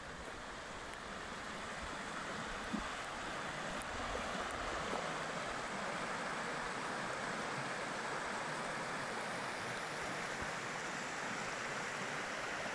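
Shallow stream rippling and splashing over stones, a steady rushing that grows louder over the first few seconds and then holds even.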